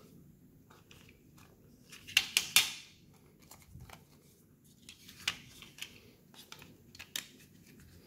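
Plastic parts of a Sony RM-GD016 TV remote clicking and scraping as they are handled and fitted back together, with a quick run of sharp clicks about two seconds in and a few lighter clicks later.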